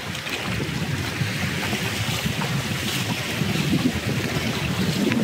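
Rushing river water as a canoe runs a stretch of class I rapids, with wind noise on the microphone; a steady, even rush that builds a little.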